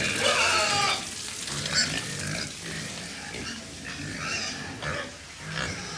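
Pigs in a pen squealing and grunting, with one loud, wavering squeal in the first second and shorter calls after it.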